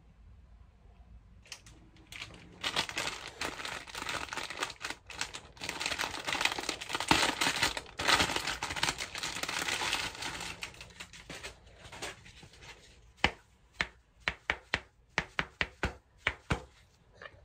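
Clear plastic bag of disposable hotel slippers crinkling and tearing as it is opened, for about ten seconds. Near the end, a quick run of about a dozen sharp slaps as the thin slippers are handled.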